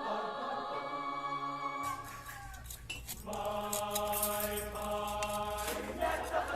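Background music of held, choir-like chords: one chord sustained for about two seconds at the start, a short lull, then another held chord from about three seconds in until near the end.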